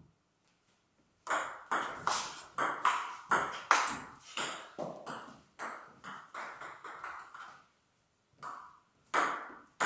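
Table tennis rally: the ball clicks sharply off the bats and the table in quick alternation, about three hits a second, one bat being a Tibhar Absolute Carbon blade with Lion Roar and Spinlord Keiler II rubbers. After a brief pause near the end, a new exchange starts with a few more hits.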